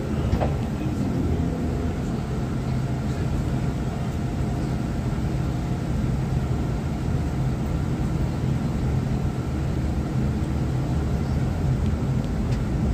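Shuttle van running: a steady low engine and road rumble with a faint hum, unchanged throughout.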